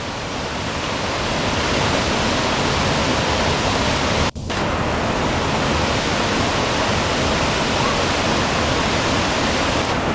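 Waterfall crashing down in a steady, loud rush of water, with a split-second break about four seconds in.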